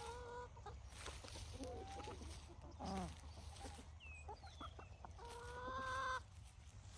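Hens clucking and giving soft conversational calls, with a falling call about three seconds in and a longer drawn-out call about five seconds in.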